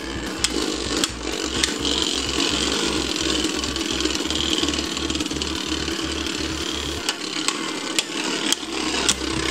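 Two Beyblade Burst spinning tops whirring steadily as they circle on a plastic stadium floor, with sharp clicks as they strike each other, more often near the end.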